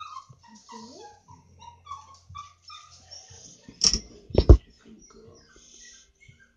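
An animal whimpering in a run of short high whines, about two a second, with two sharp knocks about four seconds in.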